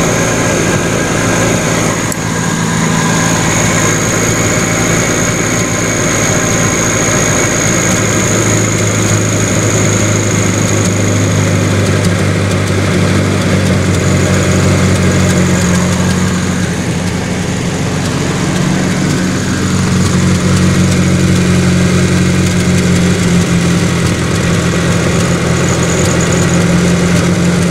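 Volkswagen Caribe 1.6's carbureted four-cylinder engine running at a fast idle: the carburetor needs adjusting and the idle sits too high. The steady note dips briefly a little past halfway, then settles back.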